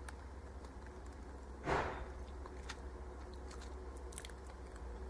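Faint small clicks and lip sounds as a lipstick is drawn across the lips, over a low steady hum, with one short rush of noise about two seconds in.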